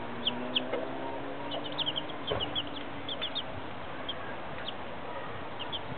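Young chicks peeping: many short, high, falling cheeps in quick clusters. A mother hen clucks among them.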